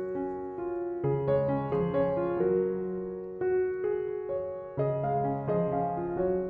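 Background music played on a keyboard: a melody of separate notes over held chords, changing every half second or so.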